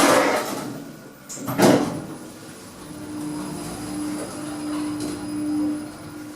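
Otis Gen 2 passenger lift: two knocks in the first couple of seconds as the sliding doors work, then a steady hum as the car travels.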